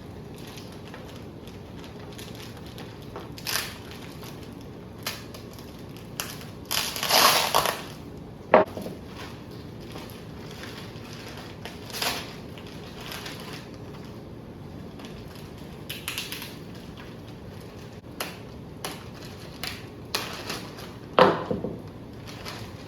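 Packing material rustling and crinkling as wrapped parts are pulled out and unwrapped. Irregular crackles come with a few sharp knocks, the loudest bursts about seven seconds in and again near the end.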